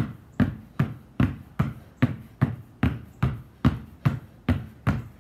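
Two basketballs dribbled hard on concrete, a steady rhythm of sharp bounces about two and a half a second.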